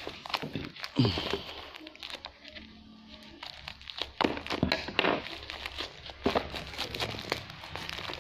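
Plastic courier mailer crinkling as it is handled and cut open with scissors, with many irregular sharp crackles and snips.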